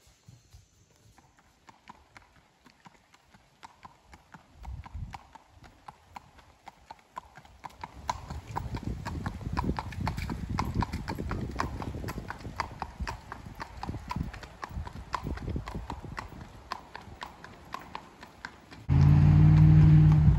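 Shod hooves of a gaited horse on pavement: an even, rapid clip-clop that grows louder as the horse comes closer. A loud, low, steady hum covers the hoofbeats for about the last second and a half.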